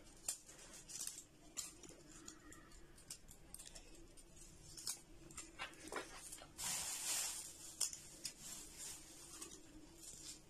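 Faint small clicks and taps of garlic cloves being dropped into glass jars of pickled peppers, over a faint steady hum. About seven seconds in comes a brief rustle of a plastic bag being handled.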